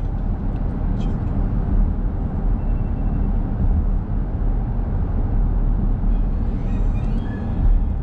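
Car driving at steady speed on a paved road: a continuous low rumble of tyres and engine.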